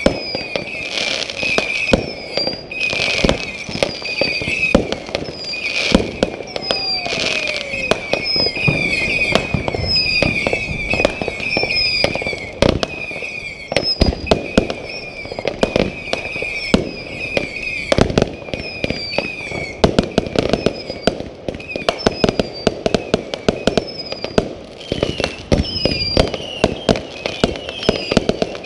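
Fireworks going off: a dense run of launch thumps, bursting bangs and crackles. A high chirp repeats about once a second under the bangs.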